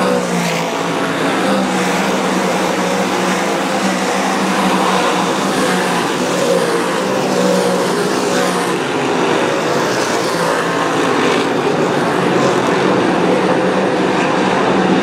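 A pack of dirt-track modified race cars at racing speed: many V8 engines running at once, loud and steady.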